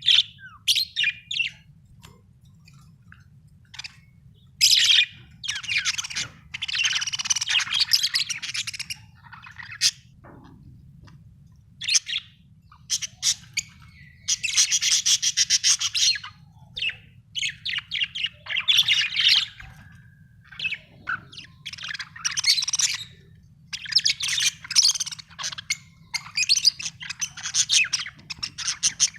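Budgerigar chirping and warbling in busy bouts of a second or two, with short pauses between them.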